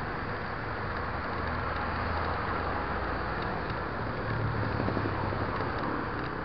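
Steady rush of wind over the microphone with tyre rumble from a mountain bike rolling along a dirt road, with a few faint ticks near the end.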